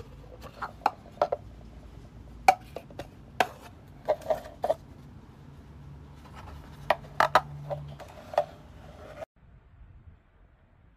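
Plastic clicks and knocks as a portable plastic toothbrush case is handled and its parts taken apart and fitted together: about a dozen sharp clicks in irregular clusters, stopping abruptly about nine seconds in.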